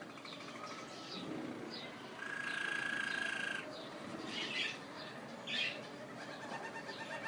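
Waterslager canary singing: rolling, rapid trills, with a louder held trilled note from about two to three and a half seconds in, followed by a couple of sharp chirps.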